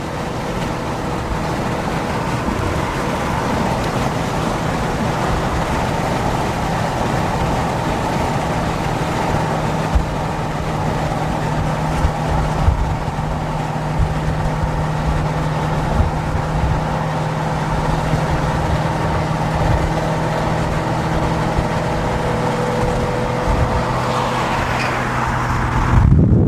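Car driving at a steady speed: an even engine drone under continuous road and wind noise.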